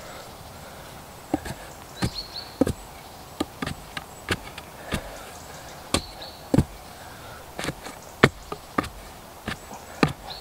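Irregular sharp knocks and taps of wood, a few a second, as a wooden post is worked by hand. Three of the louder knocks carry a brief high ring.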